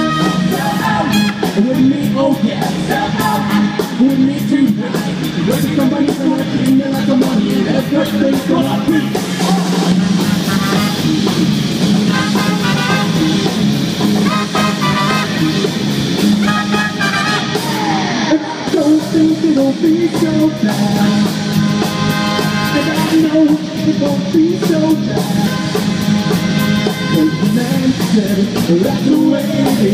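Live band playing loudly: trumpet and trombone over electric guitar, bass guitar and a drum kit, with a lead singer.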